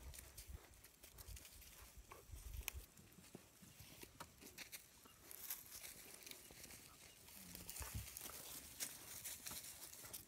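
Faint rustling and scuffing of African wild dogs' paws on dry leaf litter and soil, with scattered small clicks, as the dogs move about close by. A soft low thump about eight seconds in.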